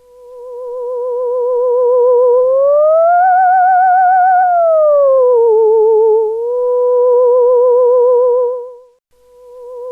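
Theremin playing one wavering tone with even vibrato. It swells in, slides up to a higher held note, slides down to a little below the starting pitch, climbs back and holds. It fades out near the end, then swells in again.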